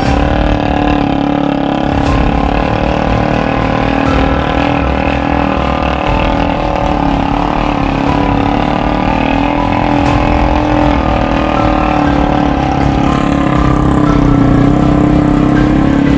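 Motorcycle engine of a three-wheeled motorbike, a Yamaha MX engine, running steadily at a constant pitch, getting slightly louder near the end.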